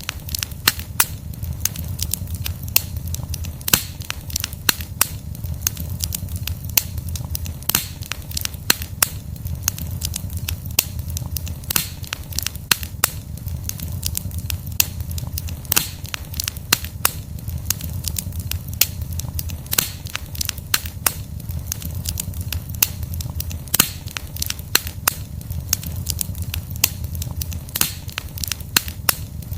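Wood fire burning: logs crackling and popping in frequent sharp snaps, several a second, over a low steady rumble.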